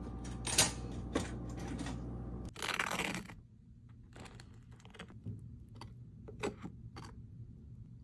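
A black two-slot toaster's lever clicking sharply about half a second in, with another click a little later, over a steady hum. After a short rush of noise near the three-second mark, the hum drops away and a spoon scrapes spread across crusty toast with light scratches and taps.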